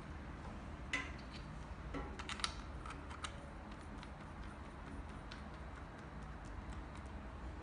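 Small clicks and taps of a transmitter head being fitted and twisted onto a shockwave therapy handpiece, sharper in the first three seconds and lighter after, over a low steady hum.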